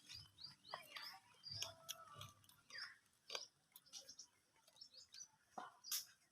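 Faint small-bird chirps, short and scattered, mixed with a few soft clicks.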